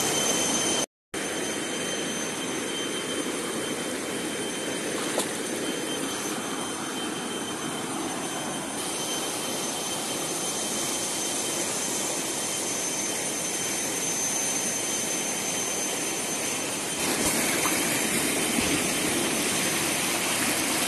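Fast-flowing river rushing over boulders: a steady, even rush of water. It cuts out briefly about a second in and gets a little louder near the end.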